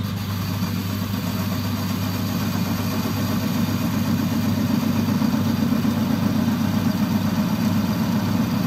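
Boxford Model A lathe running with a steady motor hum as the parting tool is fed into a stainless steel bar. From about three seconds in, a rougher, louder rubbing noise builds. The tool is barely cutting, which the machinist takes to mean it sits too high and needs lowering to centre height.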